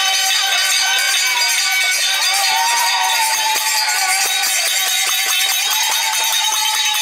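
Hari kirtan band playing: hand cymbals clashing steadily over harmonium and drum beats, with a clarinet carrying a held melody line.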